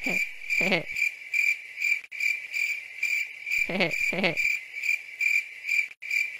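Cricket chirping sound effect, a steady run of high chirps about three a second: the classic cue for awkward silence after a joke falls flat. Two short "hehe" chuckles come near the start and again about four seconds in.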